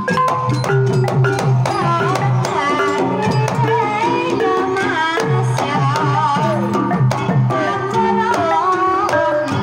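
Live Banyumasan gamelan playing a tayub piece: kendang hand-drum patterns and struck bronze gongs keep a busy, even rhythm, with a high, wavering melody line over it.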